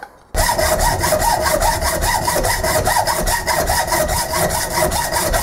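Hacksaw cutting through the gate of a cast aluminium faceplate in quick, regular back-and-forth strokes. The sawing starts abruptly a moment in.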